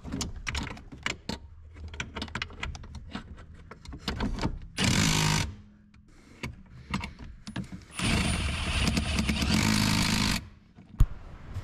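Hands working behind a truck's brake pedal: scattered clicks and knocks of parts being handled and fitted. A short rushing noise comes about five seconds in, a longer one from about eight to ten seconds, and a sharp click near the end.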